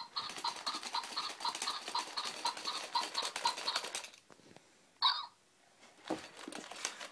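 Toy robot dog running, with rapid repeated electronic beeps over a dense mechanical clicking for about four seconds. A single short electronic chirp follows about five seconds in.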